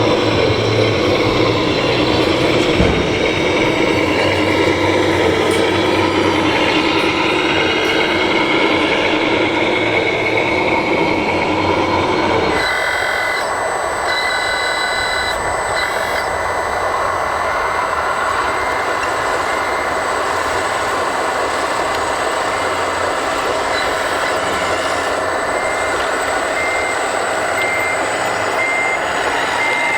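Steady mechanical running noise from RC construction models, which cuts off abruptly about twelve seconds in and gives way to an RC model's reversing beeper: a high tone that sounds as evenly repeated beeps near the end.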